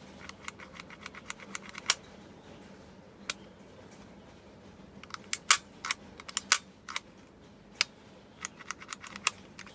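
Tokyo Marui USP Compact airsoft pistol's mechanism clicking as its safety/decocking lever and hammer are worked by hand: sharp small clicks, some in quick runs and some single, the loudest snaps about two and five and a half seconds in.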